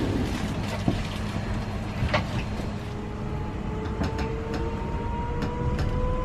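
Newag Impuls 2 (31WEba) electric multiple unit pulling away from a stop, heard from inside the passenger car: a steady low rumble, then about three seconds in the traction drive's whine starts and climbs steadily in pitch as the train accelerates, with scattered sharp clicks and knocks.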